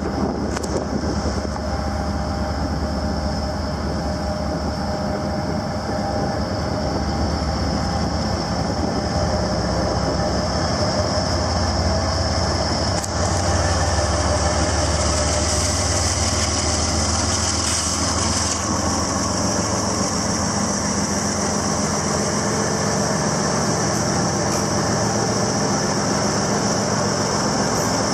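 Norfolk Southern freight train led by GE ES40DC and AC44C6M diesel locomotives approaching and passing close by, a steady low diesel rumble with a hiss over it. It gets a little louder about halfway through as the lead unit comes alongside.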